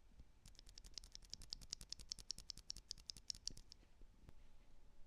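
Gateron Cap V2 Milky Yellow linear switch being pressed rapidly and repeatedly, giving a fast run of faint clicks that stops a little before 4 seconds in.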